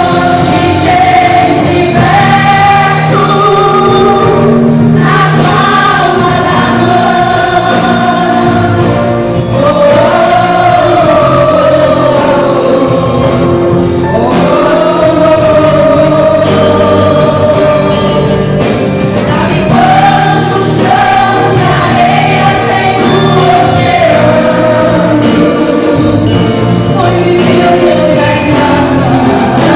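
Christian gospel song: a choir singing long held lines over instrumental accompaniment with a steady beat.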